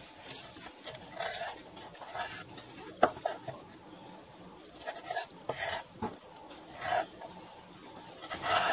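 Chef's knife slicing raw ahi tuna into cubes on a wooden cutting board: short cutting strokes about once a second, with the blade knocking sharply on the board about three seconds in and again about six seconds in.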